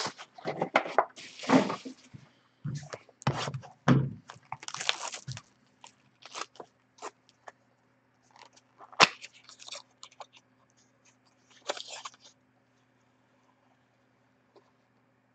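Trading card boxes, plastic wrap and cards being handled on a counter: irregular clicks, taps and crinkly rustles, busy for the first several seconds and sparser after, with one sharp click about nine seconds in. A faint steady low hum runs underneath.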